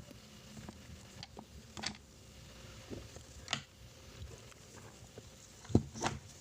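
Scattered light clicks and taps of small parts being handled and cleaned, a few seconds apart, with the loudest pair near the end.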